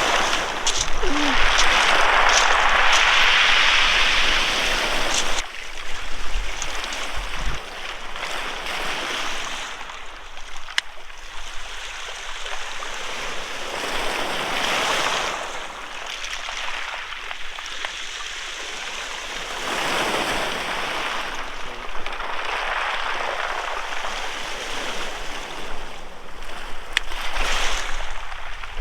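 Sea waves breaking and washing in around steps at the water's edge: one big loud surge in the first five seconds, then softer waves rising and falling every few seconds.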